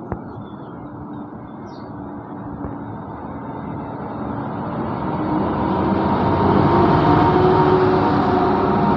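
CSR SDA4 diesel-electric locomotive running light engine, its diesel engine drone growing steadily louder over about six seconds as it approaches and passes underneath, then holding loud. A single sharp click comes just after the start.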